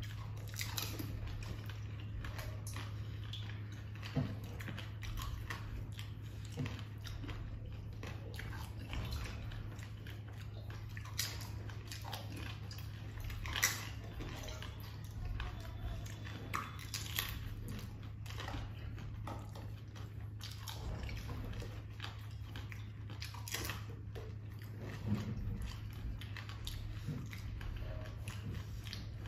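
Two people crunching and chewing fuchka (pani puri), the crisp hollow puris cracking as they are bitten, in scattered short crunches with a few sharper ones, over a steady low hum.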